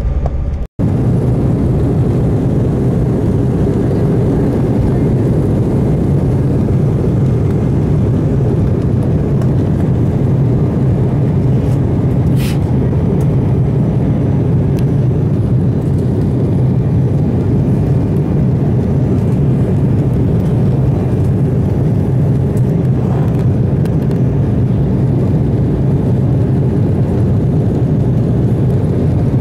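Cabin noise of a jet airliner on its takeoff roll and climb-out: a steady, loud rumble of engines and rushing air heard from a window seat. The sound cuts out for a moment under a second in.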